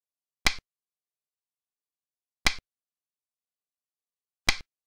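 Xiangqi move sound effect: a sharp click as a piece is set down, heard three times about two seconds apart. Each click is a strong strike followed by a softer one a tenth of a second later.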